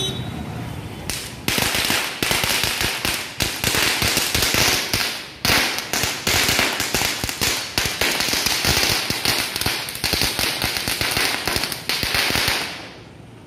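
Ground firework burning and spraying sparks: a loud hiss packed with rapid crackles, starting about a second and a half in and running for about eleven seconds before fading out near the end.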